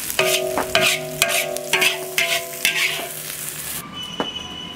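A metal spatula scraping and striking an iron wok about twice a second while pig liver and scallions stir-fry with a sizzle, the wok ringing after the strikes. The sizzling stops about four seconds in.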